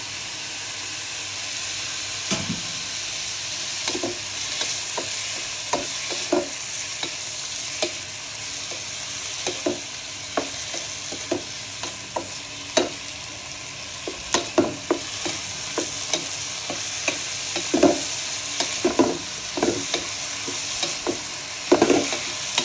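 Diced pork, garlic and dried scallops sizzling in a non-stick frying pan, stir-fried with a wooden spatula that knocks and scrapes against the pan at irregular intervals. The splash of Shaoxing wine just added is being fried down until it dries.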